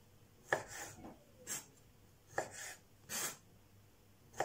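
Kitchen knife halving large capers on a wooden cutting board: short knocks of the blade meeting the board, about one a second.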